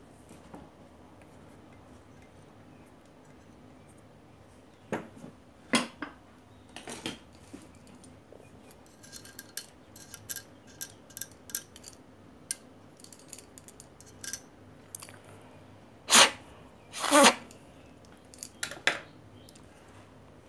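Small metal parts and tools being handled during the repair of an electric iron: scattered clicks and clinks, with two louder knocks about sixteen and seventeen seconds in.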